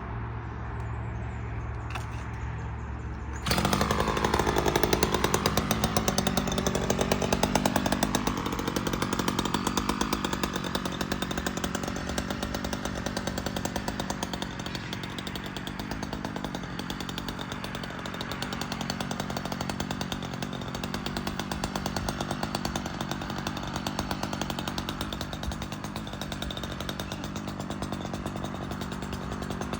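Rockwell Whippersnapper string trimmer's small petrol engine running with no throttle control, its carburettor jammed. It runs as a steady low hum, then gets much louder about three and a half seconds in, its pitch wavering up and down as the trimmer is swung.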